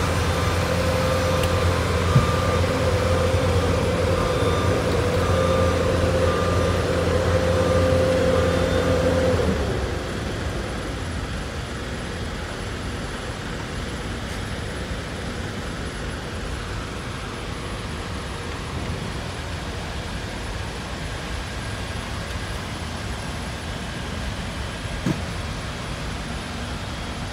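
City street background noise: a steady mechanical hum with a held whine that stops about ten seconds in, leaving a quieter, even traffic noise. A short click sounds about two seconds in and another near the end.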